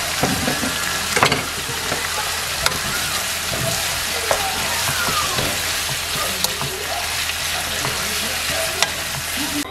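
Sliced pork and bean sprouts sizzling steadily in a frying pan as they are stirred with a wooden spatula, with a few sharp clicks along the way.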